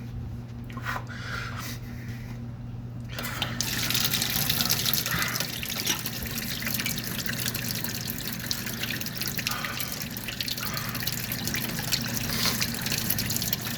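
Running water that starts about three seconds in and then flows steadily.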